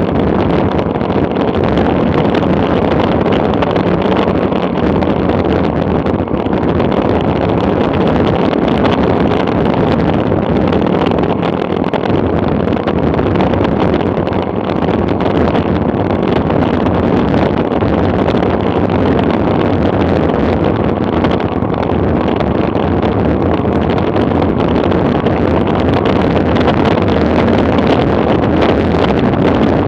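Wind rushing over the microphone of an action camera on a bicycle coasting fast downhill: a loud, steady rush of wind noise that never lets up.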